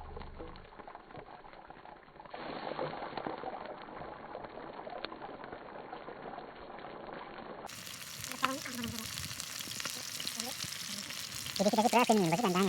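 Meat frying and sizzling. A person's voice cuts in loudly about a second before the end.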